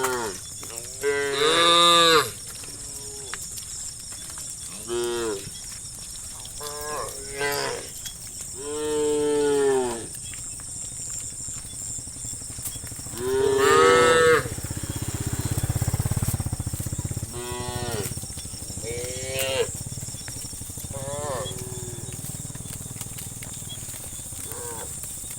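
A herd of cows mooing repeatedly, a dozen or so calls of varied length and pitch, the loudest about two seconds in and about fourteen seconds in, with a steady high insect-like hiss behind them.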